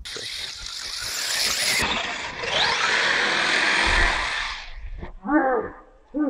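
FTX Vantage 1:10 RC buggy's sensorless brushless motor whining hard, its tyres churning loose dirt as it charges up a slope, with a rising whine in the middle; it cuts off after about five seconds. Near the end a person gives a loud exclamation.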